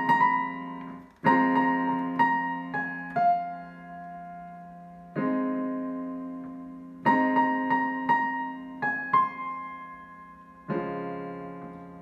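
Piano playing a slow new composition: chords struck and left to ring with quick melody notes over them, a phrase that comes round twice, each time ending on a long held chord that fades away.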